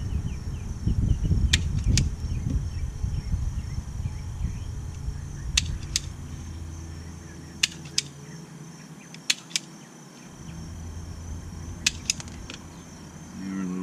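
Sharp clicks, mostly in pairs a fraction of a second apart and recurring every couple of seconds, from a hand wire stripper and the brake magnet's wires being worked by hand. A low rumble runs beneath them.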